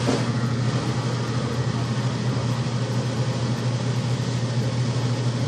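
Maytag top-load washer running in its spin cycle with the lid closed: a steady motor hum and drum whir with no screech, which the technician takes to mean everything sounds fine so far.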